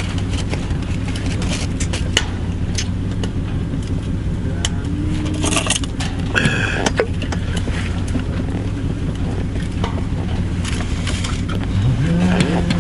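A steady low mechanical hum runs throughout, with scattered small clicks and rustles of things being handled. A man's voice comes in near the end.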